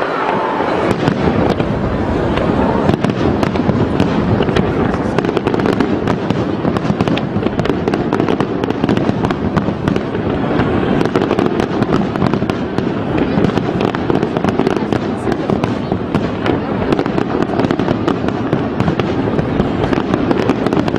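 Aerial fireworks display: a dense, continuous barrage of shell bursts and crackles in quick succession, with no let-up.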